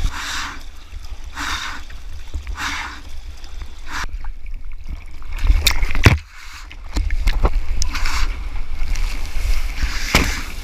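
Sea water splashing and sloshing right against a mouth-mounted GoPro as a bodyboarder paddles through whitewash, with a splashing rush about once a second over a steady low rumble. About six seconds in comes one loud rush of water, then the sound cuts to muffled for a moment as the camera goes under, before the splashing picks up again.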